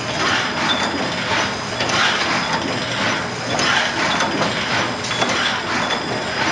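CNC servo-driven bottle screen printing machine running, its mechanisms cycling with a rhythmic mechanical noise that repeats about twice a second.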